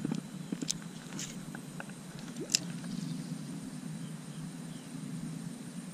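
Handling noise of a spinning rod and reel: a few sharp clicks and ticks in the first few seconds, the loudest about two and a half seconds in, over a steady low rustle.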